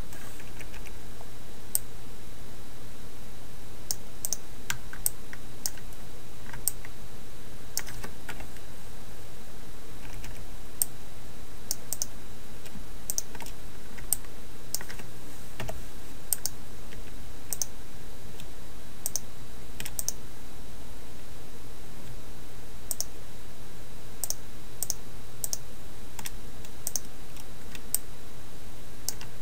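Irregular clicks of a computer keyboard and mouse, some coming in quick pairs, over a steady low hum.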